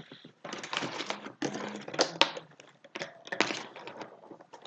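Toy packaging being worked open by hand: irregular rustling, crinkling and clicking of the box and its plastic fittings in short bursts, as a plush toy is pried out of a tight package.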